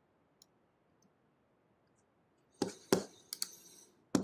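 Near silence, then a run of about five short, sharp clicks in the second half: a computer mouse and keyboard being clicked.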